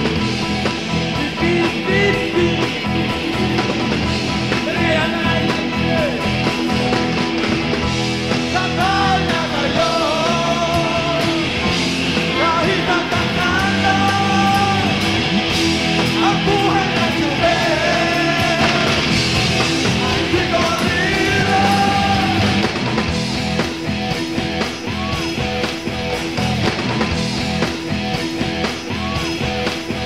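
Rock band playing live: electric guitars and a drum kit driving a steady beat, with a voice singing through the middle of the stretch.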